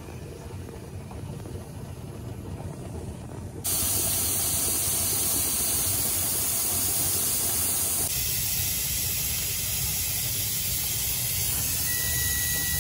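Steam hissing steadily from the open vent pipe of a Mirro 22-quart pressure canner while it vents before the weight goes on. The hiss is fainter at first and turns suddenly loud about a third of the way in. Near the end a steady electronic beep sounds from the stove's control panel.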